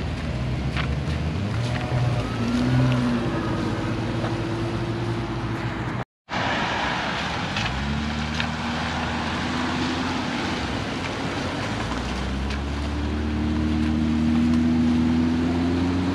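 Cars pulling away one after another through an intersection, their engines revving up and falling back as each accelerates past, over the hiss of tyres on the wet road. The sound cuts out completely for a moment about six seconds in.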